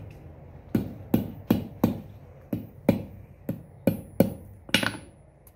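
Hand hammer striking a nail on a steel anvil, about a dozen sharp blows at two to three a second with a metallic ring, the nail being flattened into a small sword. The blows stop a little before the end.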